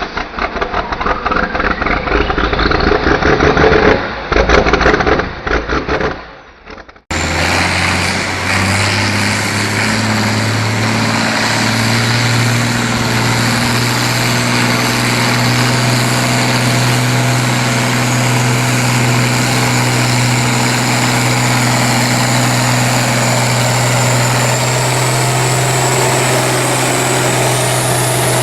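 Farm tractor engine running at a steady speed under heavy load, with a thin high whine that climbs in pitch near the end. Before it, a different, rapidly pulsing engine sound rising in pitch cuts off abruptly about seven seconds in.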